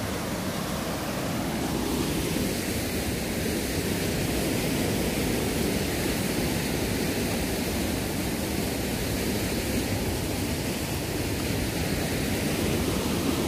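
Floodwater of a swollen brook rushing and gushing down a stone channel: a steady, even rush of water.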